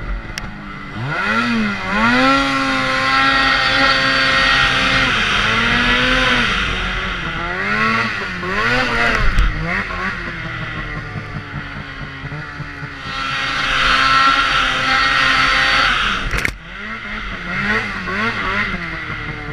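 Polaris snowmobile engine revving up and down under the rider. It rises to full throttle twice, about two seconds in and again about thirteen seconds in, each time with a loud rush of track and snow noise, then eases back. A sharp knock comes late on.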